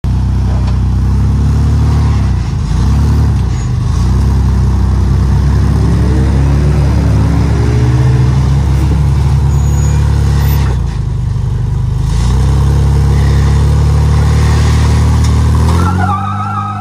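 Lifted third-generation Toyota 4Runner's engine working under load as it crawls over concrete culvert pipes. The revs rise and fall with the throttle, dip briefly about two-thirds of the way through, then hold steady.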